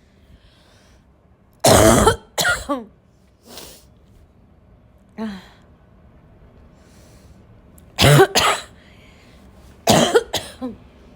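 A person's harsh barking cough in sudden fits: a cluster of three coughs about two seconds in, a single small cough near the middle, then two more pairs of coughs near the end.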